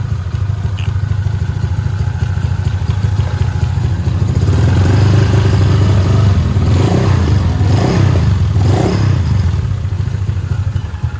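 Honda Vario 150's single-cylinder scooter engine running after a top-end rebuild. The throttle opens about four seconds in, with a few blips, then eases back toward idle near the end. It runs smoothly, free of the rough clattering it came in with.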